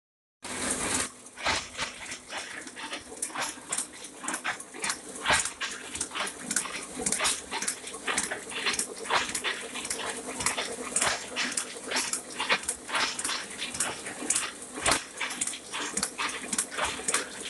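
Ryobi 3200CD offset printing press running: rapid, uneven mechanical clicking and clatter over a steady hum, starting about half a second in.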